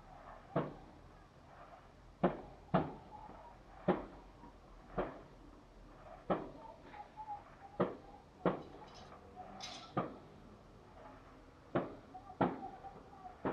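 Fireworks shells bursting in the sky, about a dozen sharp bangs at uneven intervals roughly a second apart, each with an echoing tail.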